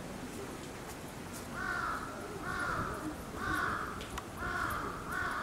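Bird cawing: a run of five short, harsh calls, about one a second, starting about one and a half seconds in.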